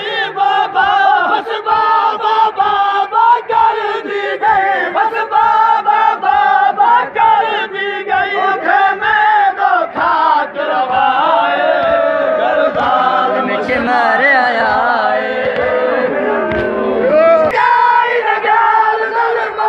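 A dense crowd of men chanting together in a Shia mourning procession, loud and close, with shouted cries among the voices.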